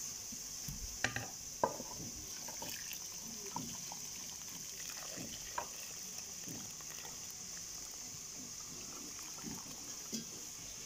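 Boiling water poured in a thin stream onto a lump of fresh cheese curd in a metal pot: a soft steady trickle and splash, with a few light knocks.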